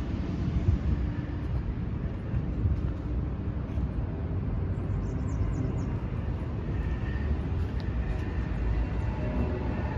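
1993 Isuzu pickup's engine idling, a steady low rumble heard at the exhaust.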